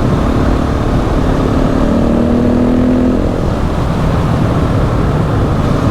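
KTM 690 SMC R single-cylinder four-stroke supermoto engine running under way at a steady pace, heard under a loud, steady rushing noise. Its engine note is clearest about two seconds in.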